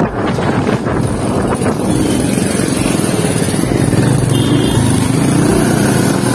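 Yamaha FZ 250 single-cylinder motorcycle engine running under way at low speed, its note rising near the end as the rider accelerates.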